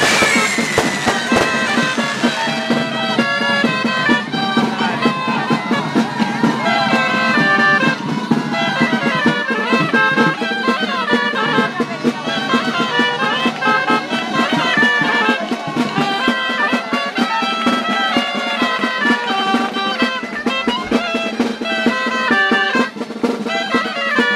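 Traditional street-band folk music: a piped melody over a steady drone, with drums keeping the beat. A firework's whistle and crackle die away in the first second or so.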